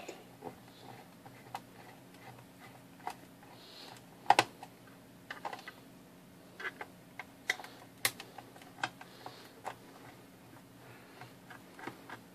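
Irregular light clicks and taps of fingers handling and pressing on a SkyScan atomic clock's plastic back housing, with sharper knocks about four and eight seconds in.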